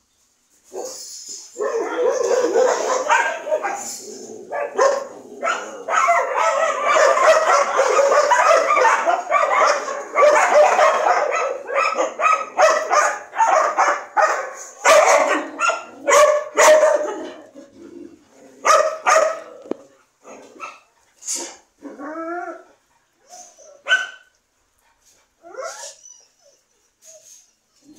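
A group of dogs barking together, overlapping in a dense stretch for the first two-thirds, then thinning to scattered single barks and a few higher, gliding yelps.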